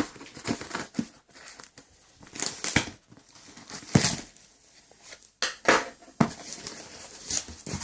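Packaging crinkling and tearing in irregular rustles and sharp clicks as a solar charge controller is unwrapped by hand.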